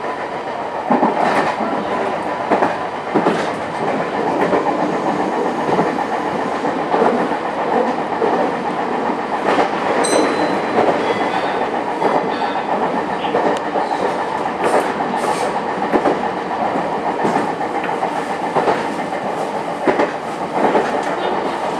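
Meitetsu 6500 series electric train running, heard from inside by the cab. A steady running noise carries the clickety-clack of the wheels over rail joints, and a brief high tone sounds about halfway through.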